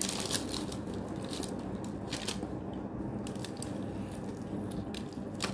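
A person biting and chewing a piece of crispy breaded fried chicken, the crust crunching in a run of crackly bites.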